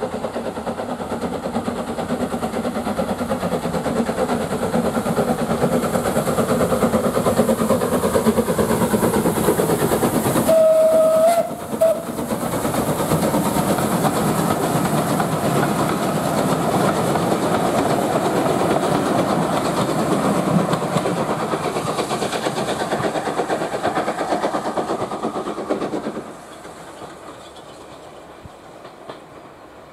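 Steam locomotive hauling a passenger train close past, its running noise loud and steady. About ten seconds in the whistle blows, one held note and then a short toot. Near the end the level drops suddenly to a fainter, more distant train sound.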